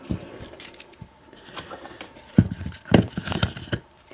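Metal parts of a doorknob lock cylinder being handled during disassembly: a series of small metallic clicks, knocks and jingles.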